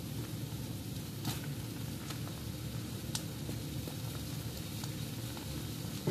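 Sautéed green peas sizzling in a skillet over a steady low hum, with a few short sharp clicks about a second in, at two seconds and at three seconds.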